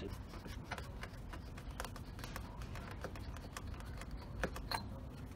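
Irregular small clicks and scrapes of a chrome oil catch can being unscrewed by hand as its canister is taken off.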